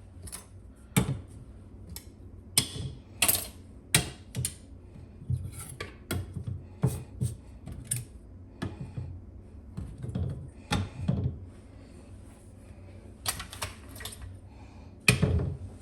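Irregular sharp clicks and clacks of hard objects, like metal utensils or tools, being handled and set down on a kitchen counter.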